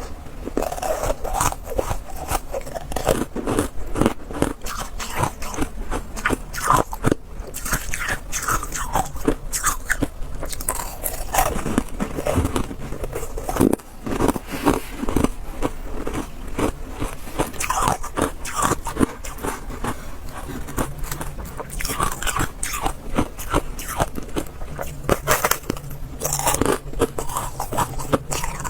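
Ice being bitten and chewed: a continuous run of sharp, crisp crunches and cracks as the pieces break between the teeth.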